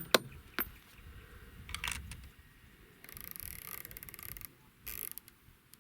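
Elevation turret of a Feyachi RFS-21 rifle scope being turned by hand. A few separate clicks, then a fast run of fine clicks about three seconds in lasting a second and a half, as the turret is cranked up to the top of its adjustment.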